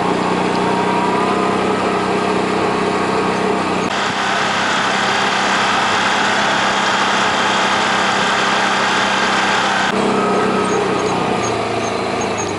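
Side-by-side UTV engine running steadily while under way, heard from on board the machine. The sound changes abruptly about four seconds in, when a louder rushing noise covers the engine, and changes back near the end.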